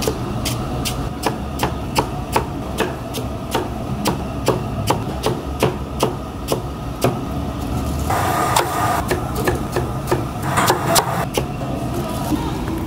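Cabbage being shredded with a large knife on a wooden chopping block: quick, even chops about three a second, stopping near the end.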